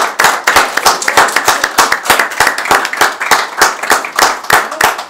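A small group of people applauding, clapping steadily throughout.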